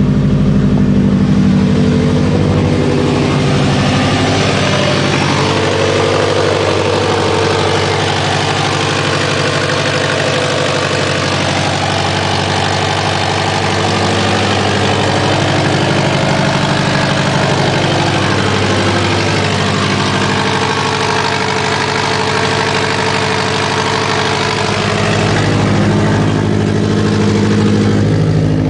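Subaru WRX's turbocharged flat-four engine idling with an awful exhaust leak. A hiss sits over the engine note, stronger from a few seconds in until near the end, and the engine's pitch wanders slightly up and down.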